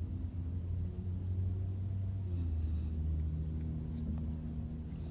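Steady low drone inside a car cabin while driving: engine and road noise.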